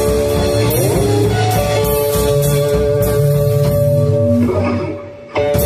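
Rockabilly trio playing live: hollow-body electric guitar holding ringing notes over upright bass and drums, with a note sliding up about a second in. Near the end the band drops out briefly, then comes back with a sharp hit.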